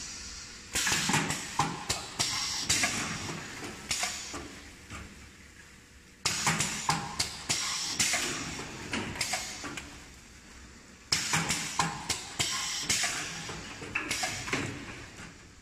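Pneumatic egg roll folding machine cycling: air cylinders clack and hiss in three bursts about five seconds apart. Each burst starts suddenly with a run of sharp clicks and fades away.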